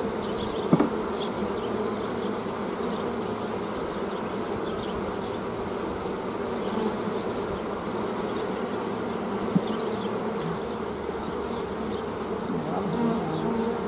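Honeybees buzzing steadily around an opened hive, with two brief knocks, one near the start and one about two-thirds of the way through.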